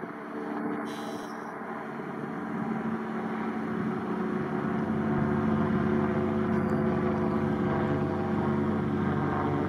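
A steady engine drone, one even pitch, growing louder from a few seconds in and then holding.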